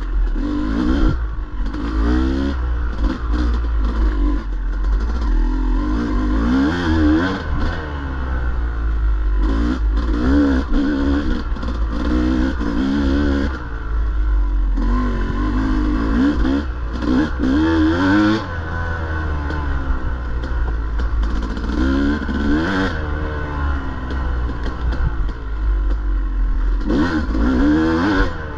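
Dirt bike engine revving up and down again and again as it is ridden hard on a race course, its pitch rising and falling every second or two, with clattering knocks mixed in.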